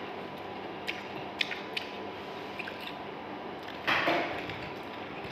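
Eating sounds: a few light clicks, then a short crunching burst about four seconds in, over a faint steady hum.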